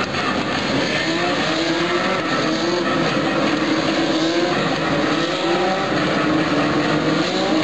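A pack of INEX Legend race cars running together, their Yamaha 1200 cc four-cylinder motorcycle engines revving over one another. The many engine pitches rise and fall as the cars pass.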